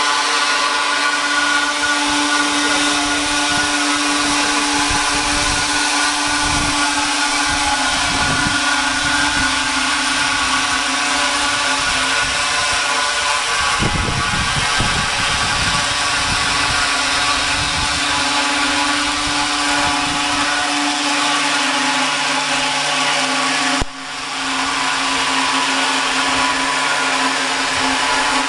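Chain sawmill running steadily, its saw chain cutting through a log, with a brief drop in the sound once near the end.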